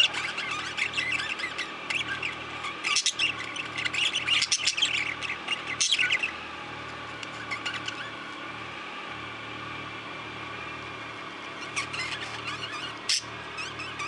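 A flock of budgerigars chattering with many short chirps and squawks. The chatter is busiest from about three to six seconds in, thins out for several seconds, then picks up again near the end.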